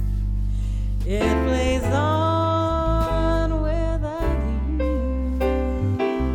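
Background pop song: a steady bass line with a sung or held melodic line, in a pause between the lyric lines.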